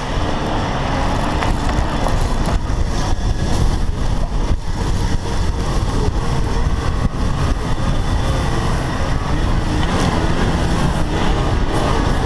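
Range Rover Sport driving along a soft sand track on low-profile road tyres: steady engine and tyre noise, with wind rumbling on an outside-mounted camera's microphone.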